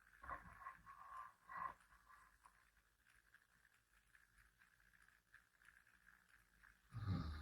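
Near silence: faint steady room hum, with two soft brief sounds in the first two seconds and a short low rumble near the end.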